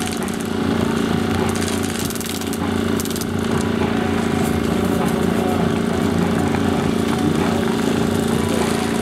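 Bursts of rapid airsoft gunfire, fast runs of sharp clicks, over a steady droning hum like a running engine, with some shouting.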